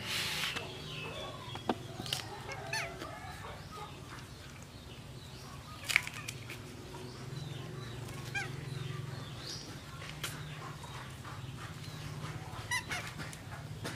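Dry banana-leaf wrapper crackling and rustling in the hands as it is peeled open, with one sharp crackle about six seconds in. Scattered short high chirps and a steady low hum run underneath.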